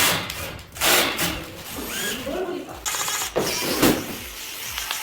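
Knocks and clicks of tools and parts being handled during an air-conditioner installation, with a short stretch of a voice in the middle.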